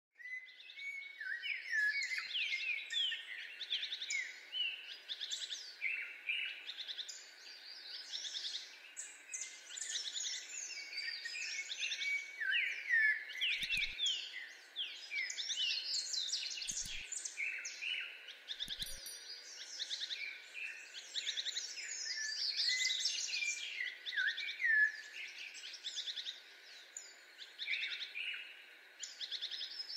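A busy chorus of many birds chirping and singing, with quick rising and falling whistled notes overlapping without a break.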